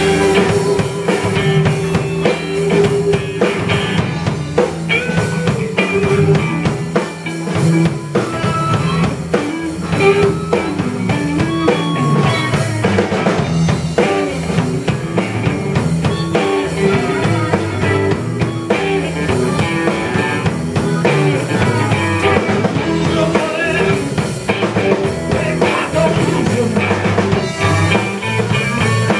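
Live blues band jamming: two electric guitars playing over a drum kit, loud and continuous.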